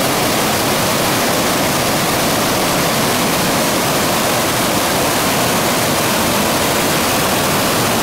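Waterfall whitewater rushing over rocks close by, a loud, steady roar of water.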